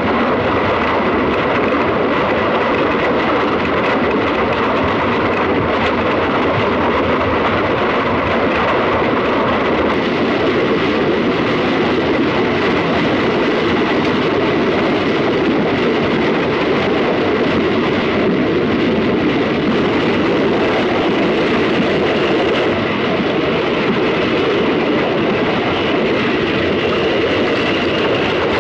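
Steam express locomotive running at speed, heard from the footplate: a steady, loud rushing rumble that holds unbroken throughout, with a faint thin tone above it.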